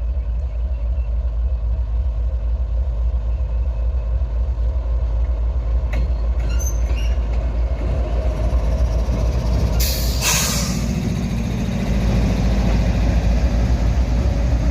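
Diesel-electric freight locomotive running close by with a steady deep engine rumble; a short hiss of air about ten seconds in, then the engine note grows louder and fuller as it loads up to pull the train out.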